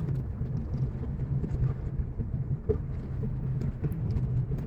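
A car driving on a dirt road: a steady low rumble of engine and tyres, with a few small knocks and ticks.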